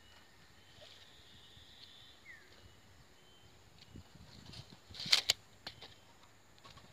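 A retractable tape measure's steel blade rattling and snapping back into its case: a quick cluster of sharp clicks about five seconds in, the loudest sound here. One short falling bird chirp is heard about two seconds in.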